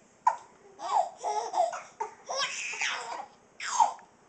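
A baby laughing in several high-pitched bursts with short gaps between them.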